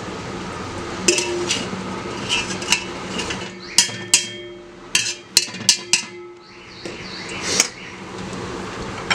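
Wire-mesh skimmer clinking and scraping against stainless steel pots while scooping paneer curds out of the whey: about a dozen sharp metallic knocks that ring briefly, several in quick succession in the middle.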